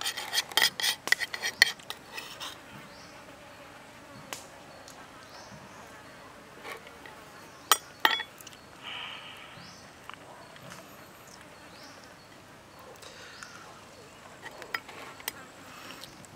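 Metal spoon clicking and scraping against raw chicken wings and a wooden chopping board while marinade is spooned on: a quick run of clicks in the first two seconds, then a few single taps. Faint insect buzzing underneath.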